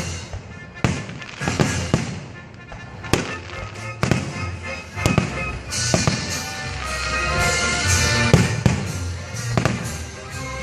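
Fireworks going off, sharp bangs at irregular intervals about once a second, with music playing underneath that grows fuller about halfway through.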